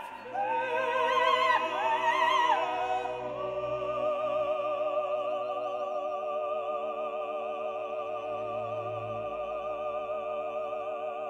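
Operatic singing with orchestral accompaniment; from about three seconds in the voice holds one long note with vibrato over sustained instrumental chords.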